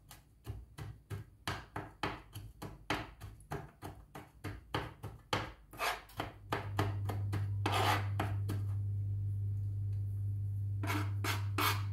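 Kitchen knife chopping garlic on a plastic cutting board, quick taps about four a second. About halfway through the chopping stops and a steady low hum sets in. The blade scrapes once across the board, and a few more chops follow near the end.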